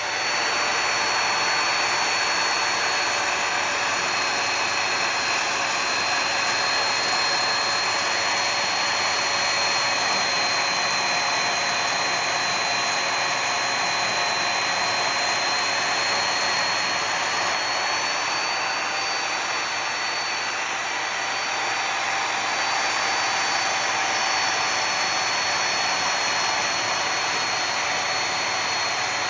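Bandsaw running steadily while cutting a piece of forged high-carbon coil-spring steel, a constant high whine over a steady hiss.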